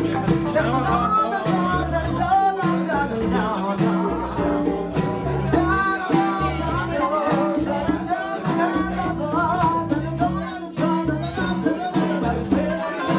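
Live band music: a singing voice over a walking bass line, guitar and steady percussion.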